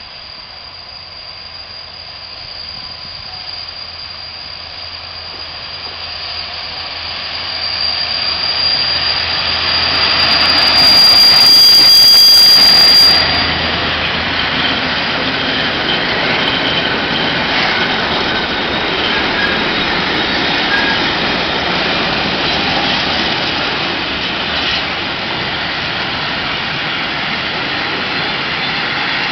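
A freight train hauled by two ET22 six-axle electric locomotives approaches and passes close by, growing louder with a high steady whine until the locomotives have gone by about halfway through. It is followed by the steady rumble and clatter of the freight wagons rolling past.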